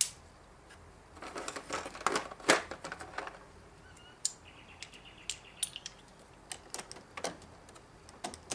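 Hand tools being handled and set down: a quick clatter of clicks and knocks about a second in, then scattered single clicks and taps.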